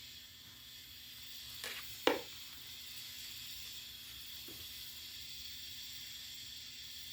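TIG welder running with a steady hiss, with a sharp click about two seconds in and a fainter tap a couple of seconds later.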